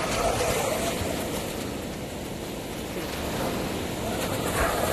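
Small sea waves breaking and washing up on a sandy beach, a steady rushing surf with gentle swells in loudness.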